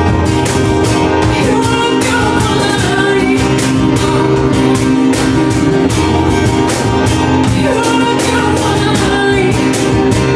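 Live acoustic pop song: a woman singing over a Roland FP-7F digital piano and acoustic guitar, with a cajon keeping a steady beat.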